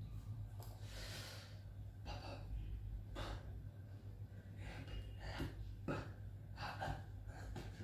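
A man's breathing while he signs: short, breathy exhalations and intakes of breath at irregular intervals, roughly one a second, over a steady low hum.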